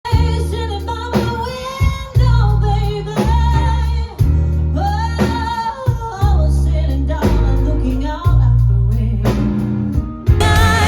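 A song, with a voice singing over guitar and bass whose low notes change about once a second. A little over ten seconds in, the sound turns suddenly fuller and denser.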